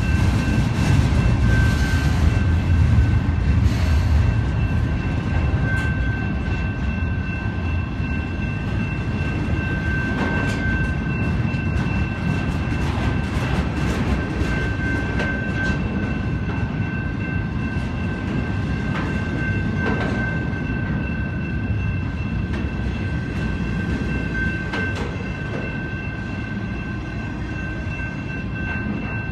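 Freight train of double-stack container cars and trailer flatcars rolling steadily past at close range, with a continuous rumble and scattered clicks of wheels over the rail. A steady high-pitched tone runs throughout. The train is loudest in the first few seconds and eases a little later on.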